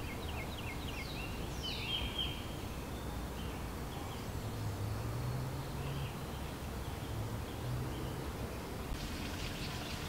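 Woodland ambience: a songbird sings a quick run of short chirps and a down-slurred note in the first few seconds, then fainter scattered bird calls, over a steady background hiss. A faint low drone comes and goes in the middle.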